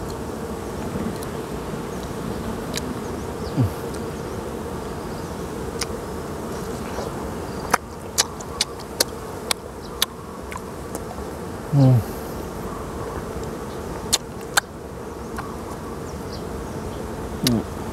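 Honeybees buzzing steadily around open honeycomb, with a few brief falling hums from bees passing close. A run of sharp clicks comes around the middle and two more a few seconds later.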